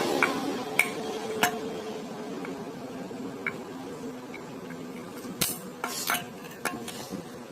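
Scattered sharp metallic clinks and taps, about a dozen, bunched most closely about two-thirds of the way in, over a faint steady hum that fades away.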